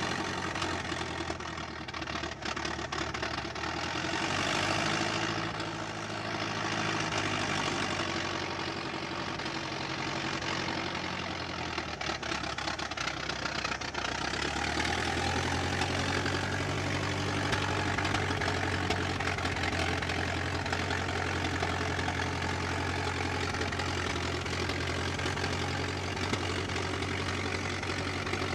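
Engine of a 1920s American car running steadily. About halfway through, its note settles into a steadier, slightly louder low hum.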